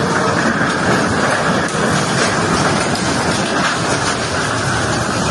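Floodwater rushing in a torrent: a loud, steady wash of water noise with no break.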